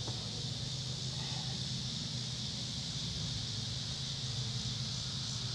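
Steady outdoor insect chorus, an even high-pitched buzzing hum, over a low steady hum.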